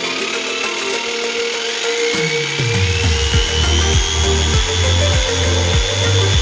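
Electric sheep-shearing clipper running, its motor whine rising in pitch in two steps over the first few seconds as it speeds up, then holding steady. Background music with a steady low beat comes in about two seconds in and is louder than the clipper.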